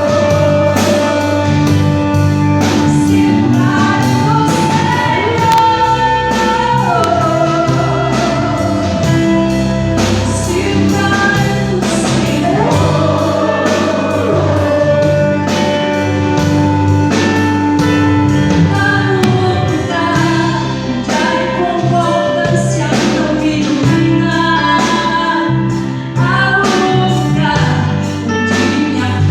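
Gospel band rehearsing a song live: a lead singer with backing voices over the band, with drums keeping a steady beat and a bass line underneath.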